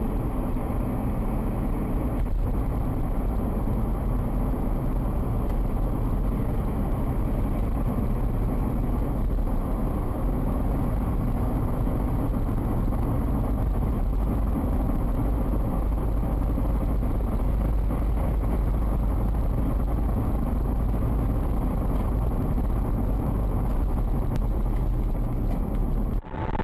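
Steady low road and engine rumble inside a car cruising on a wet, slushy highway, picked up by a dashcam.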